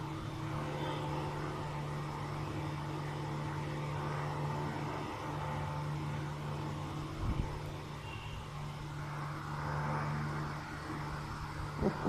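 A steady low mechanical hum, with a brief knock about seven seconds in.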